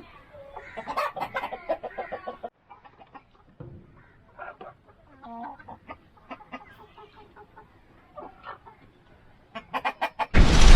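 Chickens clucking: a quick run of clucks in the first couple of seconds, then scattered single calls. Just before the end a loud, dense sound cuts in suddenly and is the loudest thing here.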